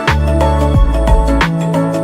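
Background music with a steady beat: bass notes and sustained melodic tones, with a drum hit roughly every two-thirds of a second.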